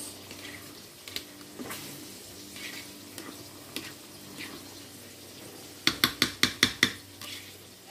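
A plastic rice paddle scraping and scooping cooked rice in a metal rice-cooker pot. Near the end comes a quick run of about eight sharp knocks.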